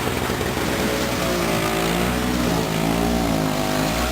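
Two-stroke snowblower engine running, its pitch swinging up and down from about a second in as it works through heavy wet snow.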